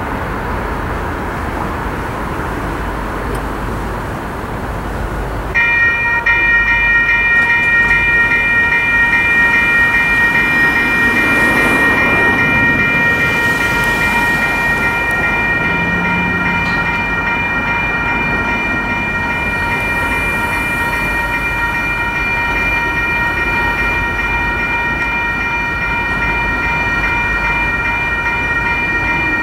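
Railroad crossing bell starts ringing about five seconds in, with rapid, evenly repeated strikes and a clear ringing tone that carries on steadily. A steady rumbling noise runs underneath.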